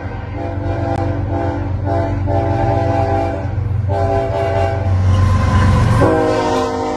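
Locomotive horn sounding several chorded blasts over the low rumble of a passing train. Another blast starts about six seconds in, its pitch bending slightly downward.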